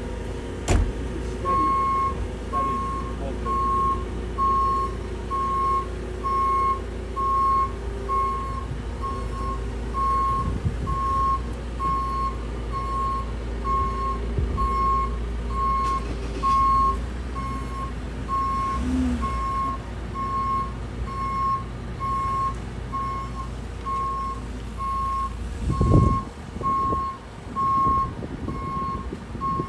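JCB telehandler's reversing alarm beeping evenly about once a second over its diesel engine running as it manoeuvres with a load on its forks. A loud knock about four seconds before the end.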